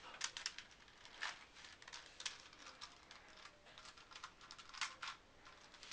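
Plastic Rubik's cube being turned fast in a speed solve: a run of faint, irregular clicks and clacks as the layers snap round.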